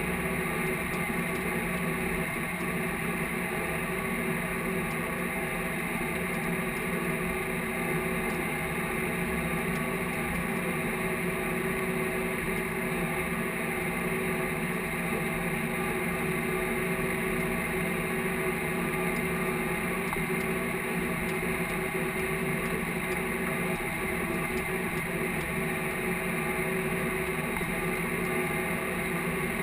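Case IH tractor's diesel engine running steadily at working speed while pulling a field cultivator, heard from inside the cab as an even, unchanging drone.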